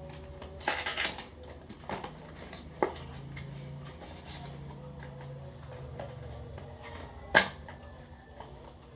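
Handling noises from unboxing small roll-on perfume bottles: a few sharp clicks and light knocks over a low steady hum. There is a short cluster about a second in, and one loud click near the end.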